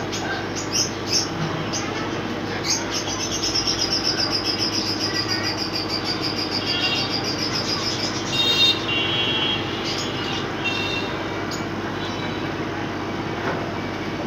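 Birds chirping over a steady low hum and outdoor background noise. A fast, high trill runs from about three to eight seconds in, with short chirps before and after it.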